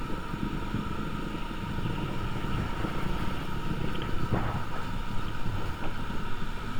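Wind buffeting the microphone and a motorcycle's engine and road noise while riding, a steady rumble with a faint constant whine.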